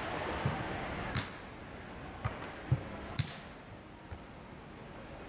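Football being kicked and bouncing during a foot tennis rally: a handful of separate dull thuds and sharper kicks, the sharpest about a second in and just after three seconds.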